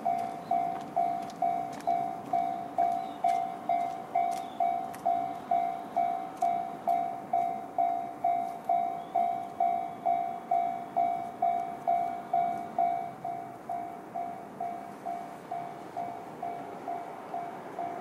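Japanese railway level-crossing alarm sounding the JR standard electronic bell tone, an even ding repeated about twice a second, which turns noticeably quieter about thirteen seconds in.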